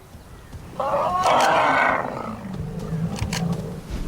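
Asian elephant trumpeting: one loud, harsh blast starting about a second in and lasting about a second. It is the agitated call of a bull fighting over mates.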